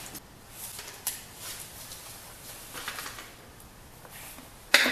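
Light handling noises from a door lock set: faint rustling and small clicks, with one sharp click about a second in and a loud knock near the end.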